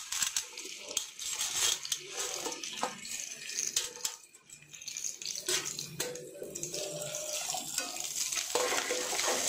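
Chopped capsicum and onion tipped into hot oil in a frying pan, sizzling, with clinks and scrapes of a steel plate against the pan. A spatula starts stirring near the end.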